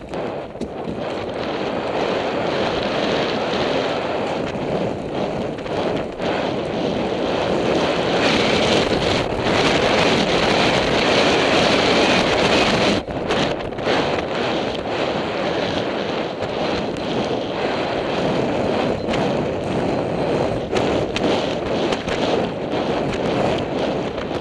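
Loud wind rushing over a helmet-camera microphone on a galloping horse, building up in the first couple of seconds and then holding steady.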